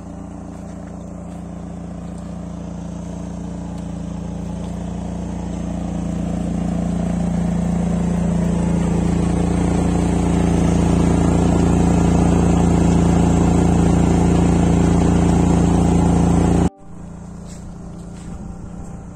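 Generator engine running steadily under load while it charges an electric car: a constant hum that grows louder over about ten seconds and then holds. It cuts off abruptly about three seconds before the end, leaving a quieter background.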